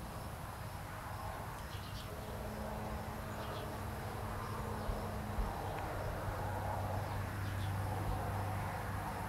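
Insects buzzing in a steady low drone that drops in pitch about halfway through, with a few faint, short high chirps.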